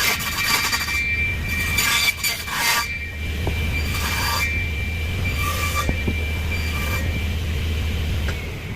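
Table saw running with a steady hum and a high blade whine, with a few short bursts of the blade cutting through wood about two, four and five and a half seconds in.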